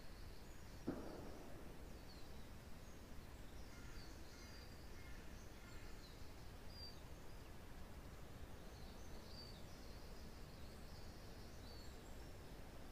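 Faint woodland ambience: a steady low wind rumble, with small forest birds giving brief high chirps on and off throughout. A single short knock sounds about a second in.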